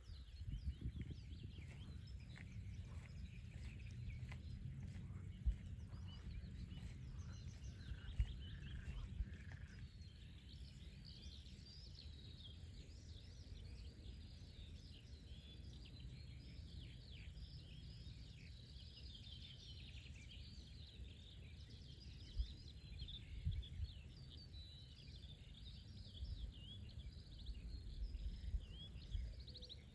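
Several songbirds singing at once, a busy chorus of short chirps and trills, over a steady low background rumble.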